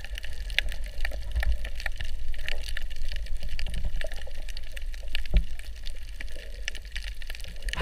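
Underwater ambience heard through a waterproof camera: a steady low rumble of moving water with many scattered sharp clicks and crackles, and a duller knock about five seconds in.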